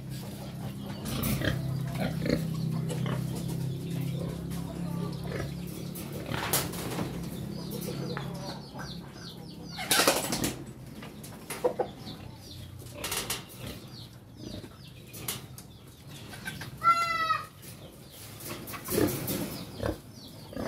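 Chickens and pigs in a backyard pen: scattered knocks and rustles, with a low steady hum in the first six seconds. About 17 seconds in, one chicken gives a single pitched call lasting under a second.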